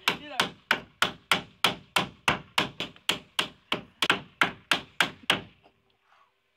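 Hammer striking a wooden door frame in quick, even blows, about three a second, stopping shortly before the end.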